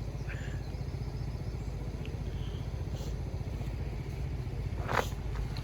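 Diesel passenger train running past with a steady low rumble, with a couple of faint high chirps early on and a single sharp knock about five seconds in.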